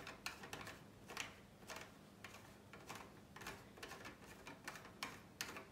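Faint, irregular small clicks and ticks of a telescope eyepiece being unscrewed and handled in the fingers.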